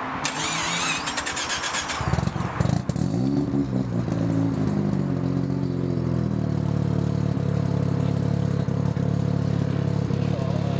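Mazda RX-7 FD's turbocharged two-rotor rotary engine being started. The starter cranks for about two seconds, the engine catches and revs briefly, then settles into a steady idle.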